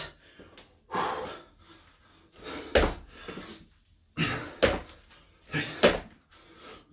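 Squat jumps in trainers on a wooden floor: a landing thud with a hard breath about every second and a half, some four times.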